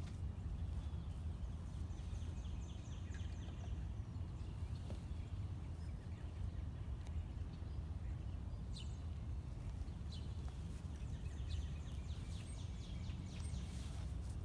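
A small bird singing quick chirping trills twice, over a steady low outdoor rumble.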